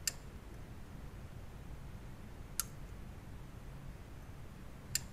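Modern encapsulated surface-mount 24 V signal relay on a Bang & Olufsen Beogram 4000 turntable's main board clicking three times, about two and a half seconds apart, as the platter speed is switched between 33 and 45 RPM. The clicks are fairly satisfying, and they show the replacement relay switching properly.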